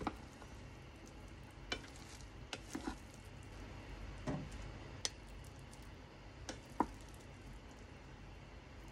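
A rice paddle stirring and scooping cooked rice in a rice cooker's inner pot, making soft scrapes and a scattered handful of light taps against the pot.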